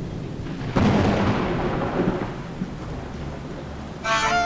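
A thunderclap about a second in, followed by a rumble with rain hiss that slowly fades. Violin music comes in near the end.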